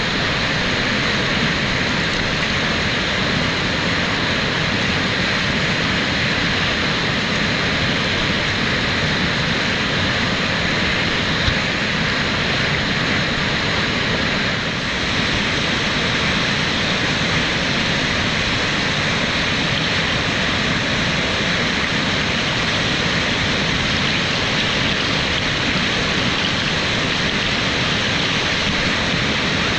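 Whitewater rushing steadily through a river play hole, its tone shifting slightly about halfway through.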